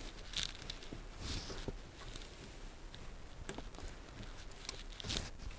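Faint scrapes and light ticks of pliers working a plastic hose clip onto a washing machine drain pump hose, scattered through with no steady sound.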